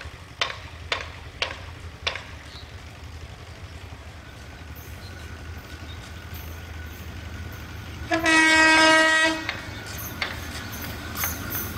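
ALCO WDM-3A diesel locomotive approaching with a steady low engine rumble that grows louder near the end. It sounds its horn once, a single steady tone lasting about a second and a half, some eight seconds in. A few sharp ticks come in the first two seconds.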